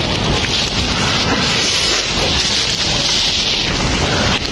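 Steady wind buffeting the microphone outdoors: a low rumble under a constant loud hiss.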